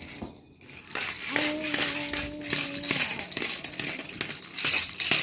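Baby's jhunjhuni rattle shaken over and over, its small bells jingling in quick irregular strokes. A long, even-pitched vocal sound, like a baby's held "aah", runs through the middle.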